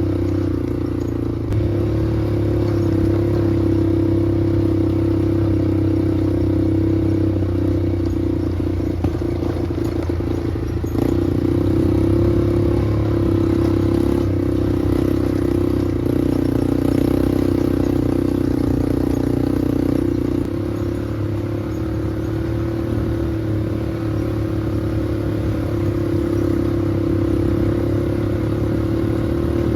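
Small off-road vehicle engine running at a steady speed. It gets a step louder about eleven seconds in and drops a little about twenty seconds in.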